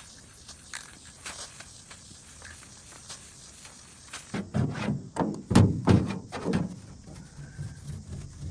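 A burst of about six hollow thumps and bangs in under three seconds, each with a short ring, as a jon boat hull is handled and flipped over onto its bottom.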